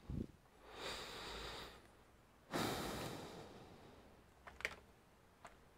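A person breathing out twice close to the microphone, the second a longer exhale that fades away, followed by a few faint clicks.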